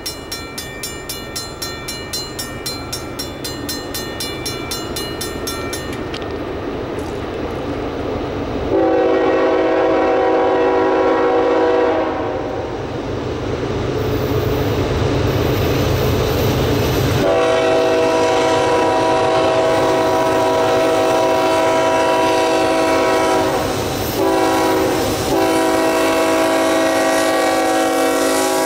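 Air horn of a Union Pacific GE C45ACCTE diesel locomotive sounding repeated long blasts, with a brief break near the end, as the train approaches. The locomotives' engine rumble grows loud as they arrive. A fast ringing runs through the first several seconds.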